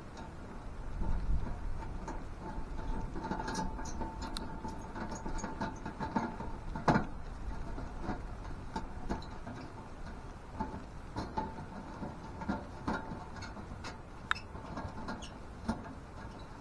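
Scattered light clicks, taps and scrapes of the sheet-metal pieces of a Seek Outside SXL tent stove being handled and fitted together.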